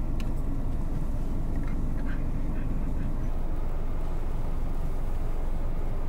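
Car engine idling, heard from inside the cabin as a steady low rumble; it is being run to heat the car. A few faint small clicks come about two seconds in.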